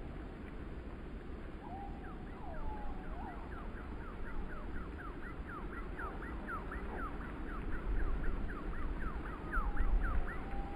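Gusty wind buffeting the microphone and tossing the trees, with a steady low rumble. Over it, from about two seconds in until near the end, comes a rapid series of short, high falling whistled notes, about four a second.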